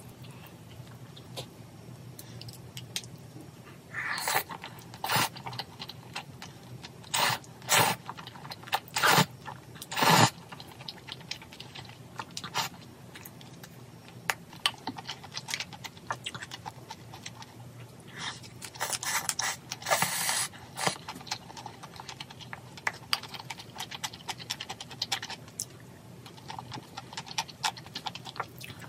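Meal being set out and handled at a table: scattered light clicks and taps of containers and utensils, with a few short rustling scrapes about four to ten seconds in and again around twenty seconds.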